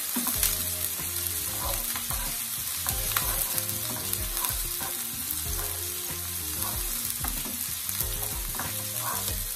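Chopped onions and Scotch bonnet pepper sizzling in hot oil in a non-stick frying pan, with a steady hiss, while a wooden spoon stirs them and scrapes repeatedly across the pan.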